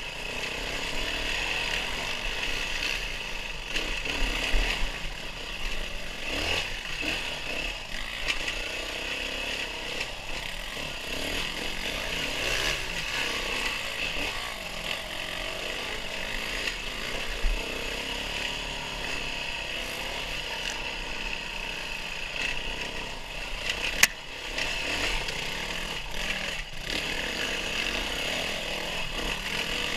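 Off-road vehicle engine, a small dirt-bike or ATV motor, running steadily while riding a trail. A few short knocks break in, the sharpest one a little over three-quarters of the way through.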